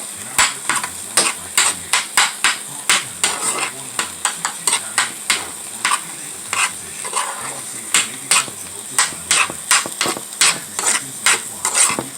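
A spoon stirring and scraping scrambled eggs in a sizzling frying pan, in quick repeated strokes about three a second over a steady sizzle.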